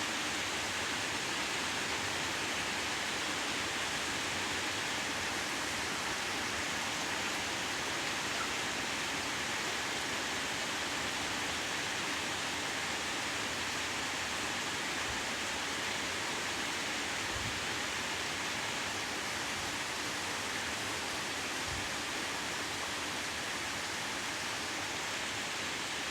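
Steady heavy rain falling: a constant, even hiss with no change in level.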